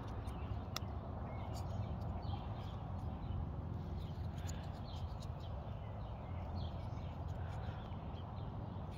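Faint birds chirping in short scattered calls over a low steady rumble, with a few small clicks.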